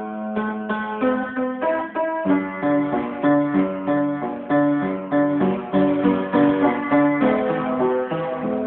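Instrumental music: a melody of distinct, separately struck notes over a lower accompaniment, with no singing.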